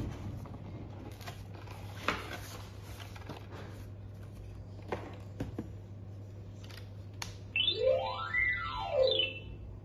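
A cardboard toy box knocks and scrapes on a tabletop several times. About three-quarters of the way in, a battery-powered baby clapping-drum toy plays a quick electronic run of notes that sweeps up and then back down.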